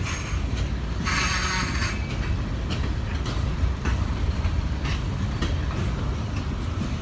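Norfolk Southern freight train rolling slowly past, a steady low rumble with wheels clicking over rail joints every half second or so, and a short hiss about a second in.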